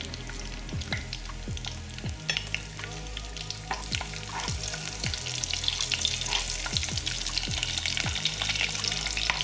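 Olive oil sizzling and crackling in a saucepan as it heats with orange peel, anise seeds and a cinnamon stick, a metal spoon stirring through it. The crackling thickens and gets louder over the second half.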